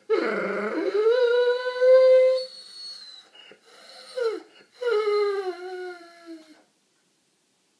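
Doberman whining after surgery: a long high whine of about two and a half seconds, a short one, then another that slides down in pitch.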